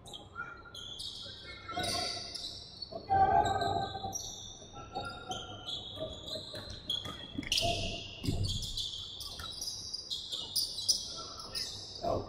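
Sneakers squeaking repeatedly on a hardwood basketball court as players move, with a basketball bouncing a few times and players' voices.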